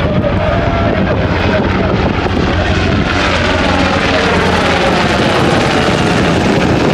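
UH-60 Black Hawk helicopter flying low overhead: loud, steady rotor and turbine noise, its pitch sliding down as it passes about halfway through.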